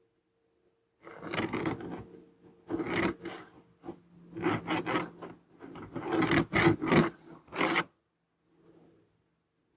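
Scraping and rubbing on fibreglass at the joint between the targa panel and the rear section, in about five uneven strokes of a second or so each.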